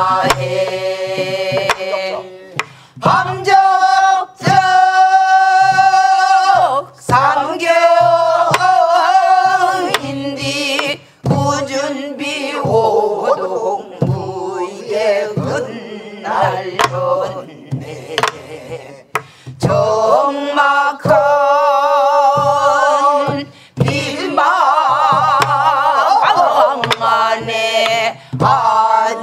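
Mixed group of voices singing a Namdo folk song (Korean namdo minyo) in unison, with sliding notes and heavy, wavering vibrato, accompanied by steady strokes on Korean barrel drums (buk).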